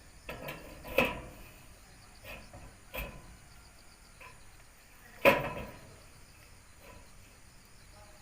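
Sharp metallic clanks and knocks of metal parts being handled and struck, each ringing briefly; three stand out about two seconds apart, the loudest about five seconds in, with a few softer knocks between.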